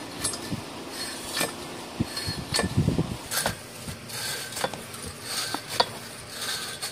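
Irregular metallic clinks and chain rattle as a long iron bar, chained around a hand pump's iron pipe, is worked as a lever, with a few dull thumps about halfway through.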